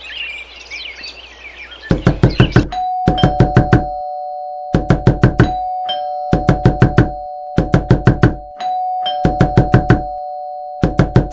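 Loud, rapid knocking on a door, in bursts of about five quick knocks repeated every second or so, beginning about two seconds in, over a steady two-note tone. Birds chirp during the first two seconds.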